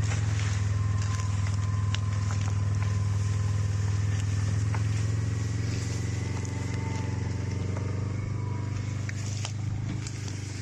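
John Deere Gator utility vehicle's engine running at a steady pitch as it drives over rough grassy ground, with a faint whine above it and scattered light clicks. It eases off slightly over the last few seconds.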